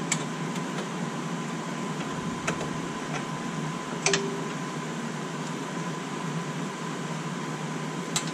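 Steady hum and hiss with a few sharp clicks spaced seconds apart: small metal taps as gloved hands work at a car's front brake caliper and brake line fitting.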